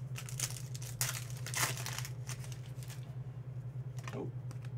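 Foil wrapper of a Panini Contenders football card pack crinkling as it is handled and torn open, in several crackly bursts over the first two seconds.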